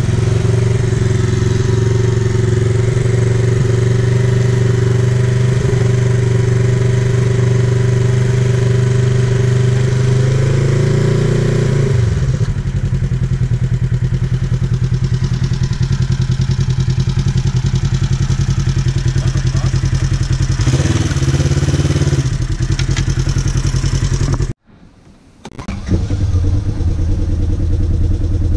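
Off-road vehicle engine running steadily close by. Its pitch rises slightly and then falls away about 12 seconds in, and it settles to a lower, rougher run. Near the end the sound cuts out for about a second, then the engine is heard running again.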